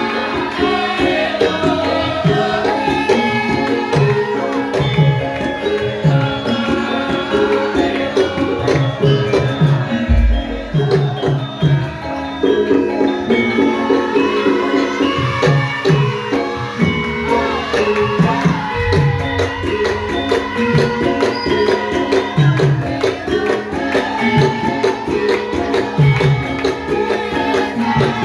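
Live Javanese gamelan music: regular hand-drum strokes over steady ringing pitched metal percussion, with a deep low stroke about ten seconds in.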